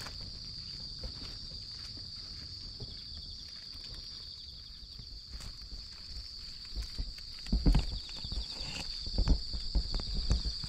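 Crickets chirring in a steady high continuous trill. About seven seconds in, a run of soft, close, low knocks and crunches comes in and is louder than the trill.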